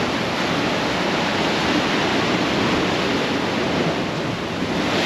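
Ocean surf washing in steadily, a continuous even rush of water noise.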